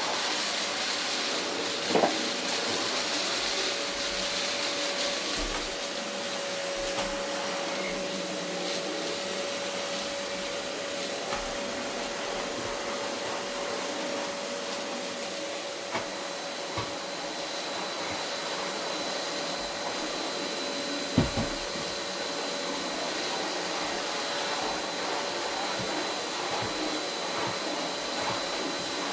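Vacuum cleaner running steadily over carpet, its motor giving a constant whine over the airflow noise, with a few brief knocks, the loudest about 21 seconds in.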